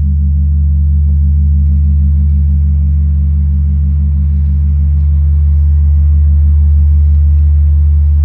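The Campana Mayor, the great bronze bell of the Metropolitan Cathedral, humming on after a toll of its death knell: a deep, loud, sustained drone with a regular pulsing waver in its upper tone. No new stroke falls.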